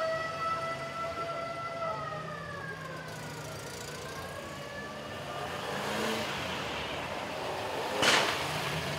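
A siren's held wailing tone that swells slightly, then winds down in pitch and fades out over the first few seconds. Old cars then drive past at low speed, with a short sharp crack, the loudest sound, about eight seconds in.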